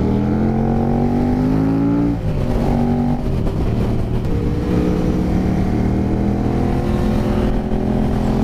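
KTM 1290 Super Duke R's V-twin engine accelerating on the road, heard from the rider's seat, its pitch climbing, then dropping at a gear change about two seconds in and climbing again from about four seconds in, over a steady rush of wind.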